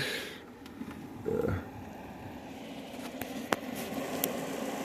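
Handling noise as objects are moved by hand: a few sharp clicks and knocks over a steady low hiss.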